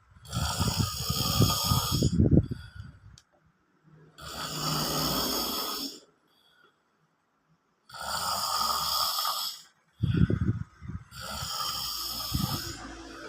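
A man snoring loudly in his sleep: four long snoring breaths of about two seconds each, with short pauses between. The first and last have a low rattle. The snoring is likened to a cow.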